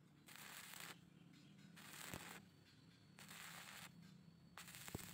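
Stick-welding arc crackling in four short bursts about a second and a half apart, as the electrode is struck and broken off again and again. The welder is laying tack welds one at a time to keep excess heat out of the joint.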